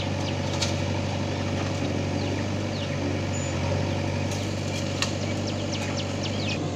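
Steady low hum of diesel engines running: a JCB 3DX backhoe loader working its loader arm and bucket over the trolley, and the Swaraj 744 FE tractor's three-cylinder diesel.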